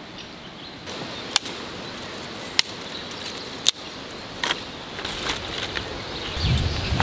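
Dry sticks cracking sharply as they are picked from a pile and gathered by hand: three loud cracks about a second apart, then softer clatters. Near the end, a low rustle and thump as the bundle of twigs is handled.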